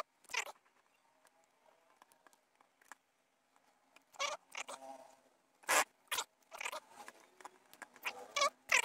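Deflated latex balloons squeaking and rustling as they are stretched, twisted and knotted around a tripod, in a run of short irregular bursts that cluster in the second half.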